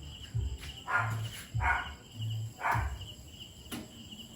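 Crickets chirping in a steady pulsing rhythm, with four short, louder sounds spaced about a second apart.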